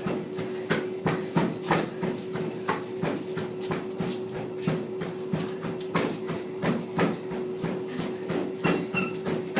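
Treadmill running at 5 MPH with a steady hum from its motor, and the thud of footfalls on the moving belt about twice a second.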